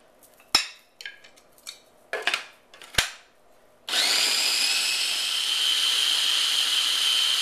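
Small Cuisinart food processor: two sharp clicks and some light clatter, then about four seconds in the motor starts and runs steadily with a high whine, pureeing strawberries with strawberry jam.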